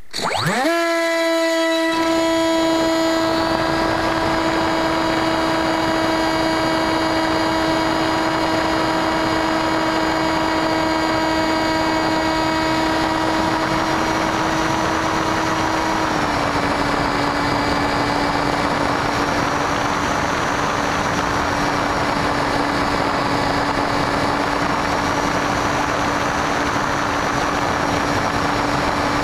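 Electric motor and pusher propeller of a Bixler v1 foam model plane, heard through its onboard camera. The motor spools up sharply in the first second to a steady high whine over a constant hiss of wind, and its pitch steps down slightly about halfway through.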